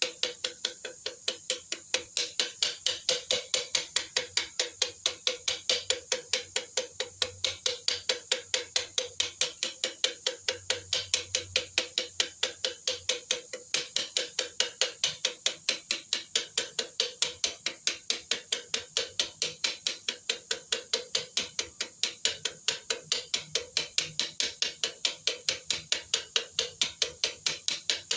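Steady, rapid clicking, about three to four sharp clicks a second, evenly spaced.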